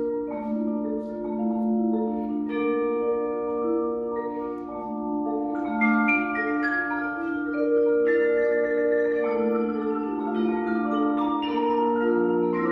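Mallet percussion quartet of marimbas, vibraphone and chimes playing a slow piece of overlapping, ringing held notes that change in chords every second or so.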